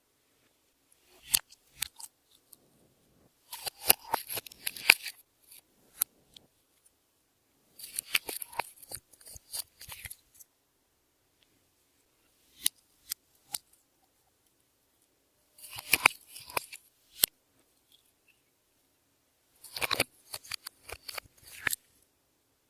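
Clear slime being squeezed and pressed by hand, giving bursts of sharp clicking and crackling pops from trapped air. Five short bursts come a few seconds apart, with silence between them.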